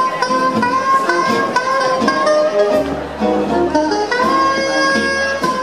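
Swing jazz music playing for Lindy Hop dancing, a held melody over a steady beat, with a low bass line coming in about halfway through.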